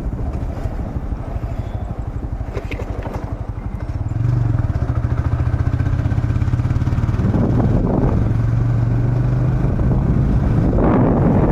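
A vehicle engine running while on the move, with a low steady drone that gets louder about four seconds in.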